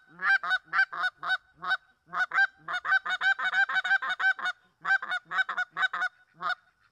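Canada goose call blown by hand: a string of short, sharp clucks that speeds up into a fast rolling run in the middle, then slows again. A double cluck is worked in, imitating a gander and a goose calling in alternation.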